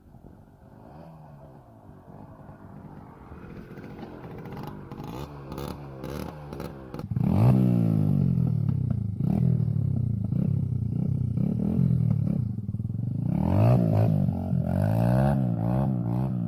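Small motorcycle engine under hard throttle on a hill climb, growing steadily louder as it approaches, then loud from about halfway through, its revs repeatedly climbing and dropping.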